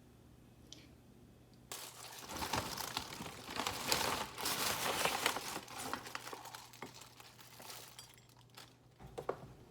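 Packaging crinkling and rustling as it is handled, starting about two seconds in and dying down near the end to a few scattered clicks.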